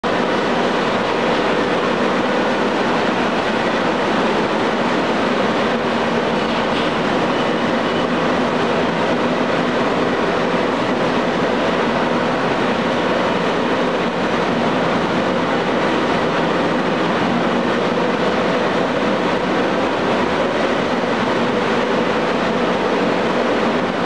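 Steady, unbroken drone and hum of a ship's air-conditioning and refrigeration plant running: compressor and pump machinery heard in the machinery room.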